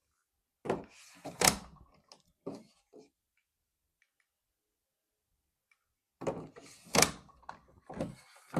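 Handling sounds of hard objects: knocks and thuds with sliding scrapes, in two bouts, starting about a second in and again about six seconds in.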